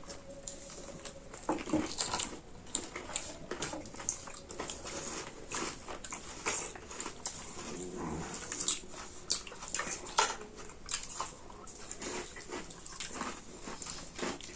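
Close eating sounds: chewing, lip smacking and mouth clicks as food is eaten, a dense run of short wet clicks.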